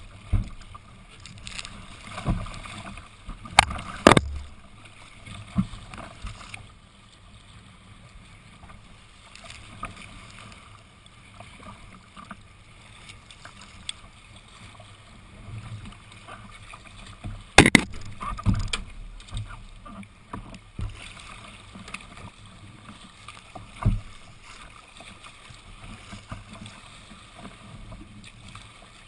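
Water sloshing and splashing against the hull of a sea kayak being paddled through choppy water, with a few sharp knocks, the loudest about 4 seconds and 17 seconds in.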